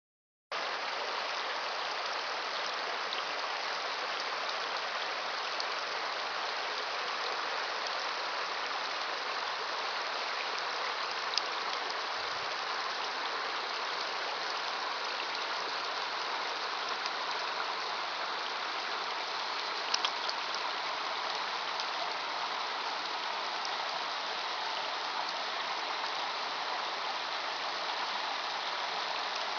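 A creek running steadily, a continuous rushing hiss of flowing water, with a couple of faint clicks.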